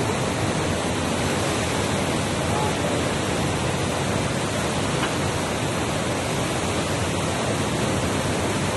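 Fast-moving floodwater rushing in a torrent and spilling over a dam wall: a loud, steady, even rush of water.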